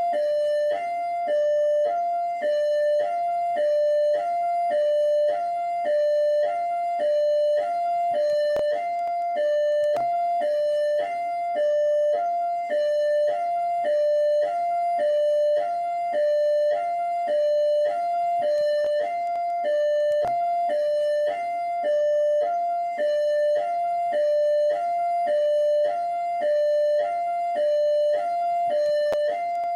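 PMERJ police siren in hi-lo mode: two tones, a high and a low, alternating evenly, each held about half a second, repeating without a break.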